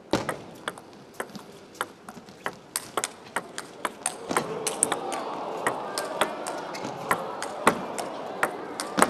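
Table tennis rally: a quick, irregular run of sharp clicks as the ball strikes the bats and the table, about two to three a second. A murmur of crowd voices swells under the clicks from about halfway through.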